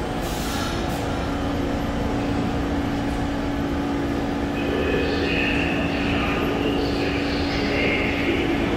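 New York City subway train running slowly out of the station with a steady drone and low rumble. From about halfway, a muffled public-address announcement joins in, saying that a 6 train is approaching.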